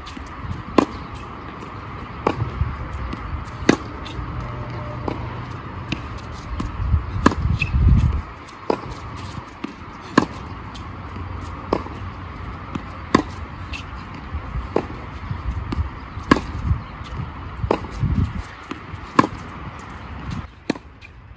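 Tennis racket strings striking the ball in a groundstroke rally: crisp hits about every one and a half seconds, with fainter ball bounces on the hard court between. A low rumble comes through twice.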